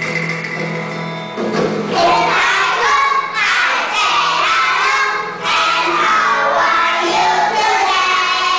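Children singing an English action song over a backing track; the singing begins about a second and a half in.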